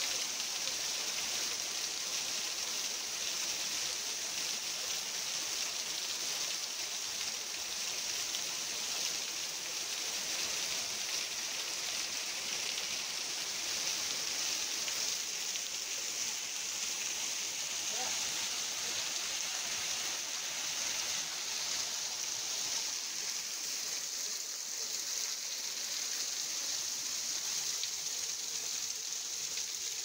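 Steady rush of a forest stream splashing and cascading over rocks.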